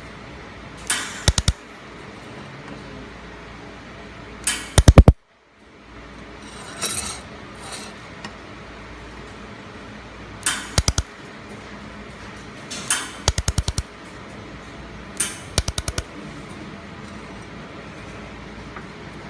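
Handheld laser welder firing on stainless steel in six short spells, each a brief burst followed by three or four sharp snaps, over a steady machine hum.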